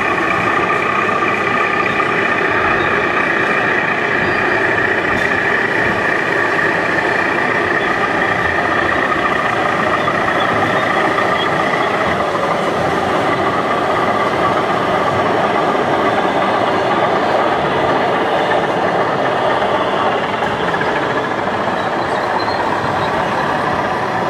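Steady engine sound of a radio-controlled scale model construction vehicle, a Liebherr 634 crawler loader, running without a break over steady exhibition-hall background noise.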